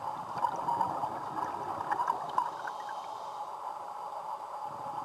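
Muffled underwater bubbling and gurgling around a scuba diver, busiest in the first couple of seconds.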